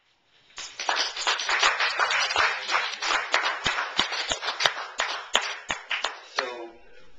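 Small audience clapping, starting about half a second in and dying away after about six seconds, with a short voice sound as it fades.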